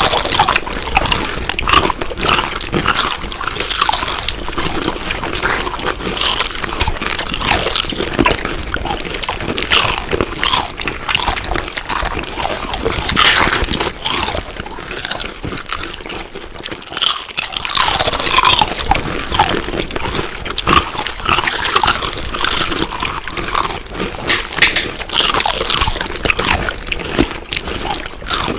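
Chewing of crunchy food: dense, irregular crunches and crackles, loud throughout, with a brief lull about sixteen seconds in.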